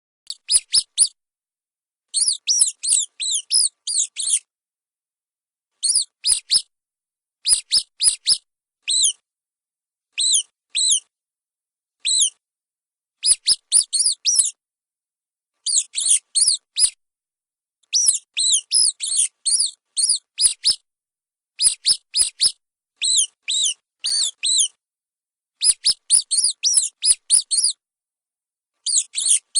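Small mice squeaking: short, high-pitched squeaks come in quick clusters of three to eight, with brief silent gaps between the clusters.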